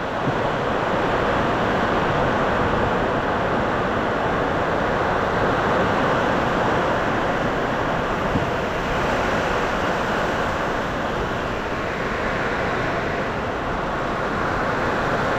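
Heavy rain pouring down in strong wind, a steady, even rush of rain and wind with no let-up.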